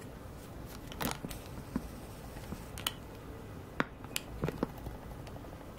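Scattered small clicks and taps from handling a smartphone, about eight of them, the sharpest a little after one second in, over a faint steady hiss.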